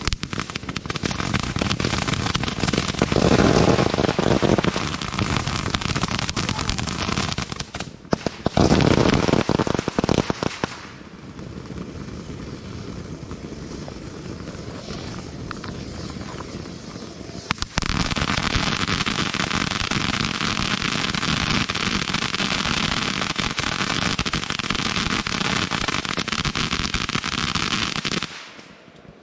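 Ground fountain fireworks spraying and crackling, a dense rapid crackle with heavier, deeper rushes a few seconds in and again around nine seconds. It quietens down for a while in the middle, then jumps back to a loud crackle about two-thirds of the way through and fades near the end.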